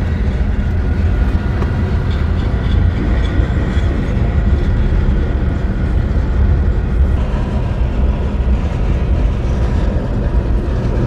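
Long double-stack container freight train rolling slowly across a level crossing: a steady low rumble of wheels and cars, heard from inside a car.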